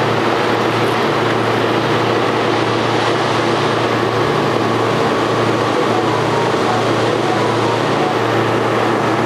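Steady machine hum with a low drone, from refrigeration machinery running: the soft-serve ice cream machine's compressor and cooling fan, freezing its first batch of ice cream.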